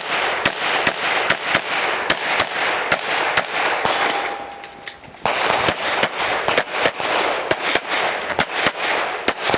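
Rapid pistol fire on a practical-shooting stage: a string of sharp shots, a few a second, broken by a short pause about halfway before the shooting picks up again.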